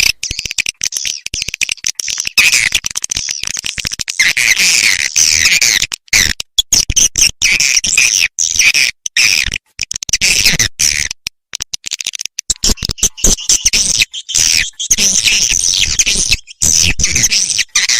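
Swiftlet lure-call recording: dense, high twittering chirps of edible-nest swiftlets, repeatedly broken by short abrupt gaps. This is the 'lintasan' call played to draw passing swiftlets to a swiftlet house.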